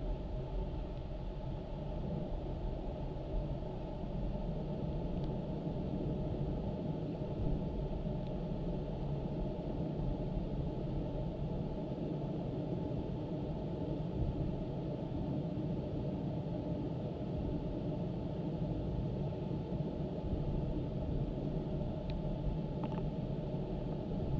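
Steady low rumbling noise, muffled, with little above it, from a faulty audio recording.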